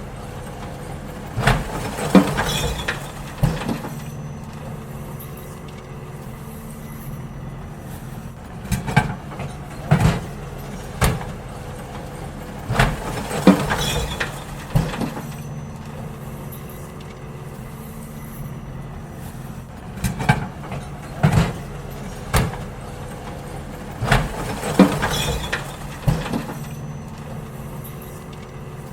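Garbage truck's diesel engine running steadily while bins are emptied into it, with clusters of loud clattering bangs about every four to six seconds.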